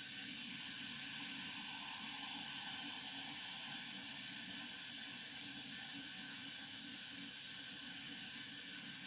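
Kitchen tap running water in a steady rush.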